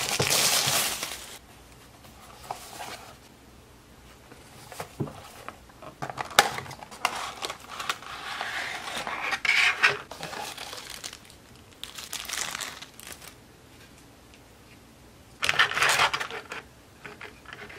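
Model-train packaging opened by hand: a thin plastic wrapper torn off a cardboard box, then the box flap lifted and the clear plastic case inside slid out and handled. Several bursts of crinkling and rustling with a few sharp plastic clicks, the loudest right at the start.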